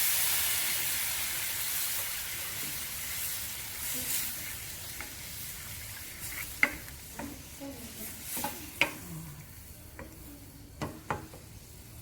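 Spinach frying in a pan, its sizzle fading over the first several seconds as the coconut milk goes in, then a spatula stirring and scraping the pan with scattered clicks.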